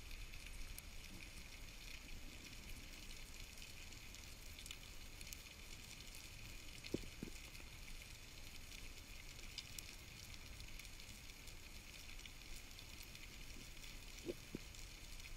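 Faint underwater ambience: a steady fizzing crackle over a low rumble. Two brief double knocks stand out, one about halfway through and one near the end.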